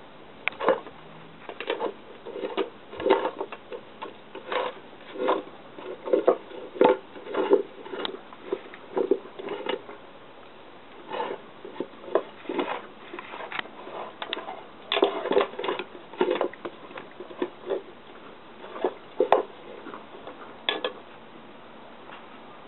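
A dog licking a dish and nudging it about, giving an irregular run of short taps, clinks and licking sounds, several a second, with a few brief pauses.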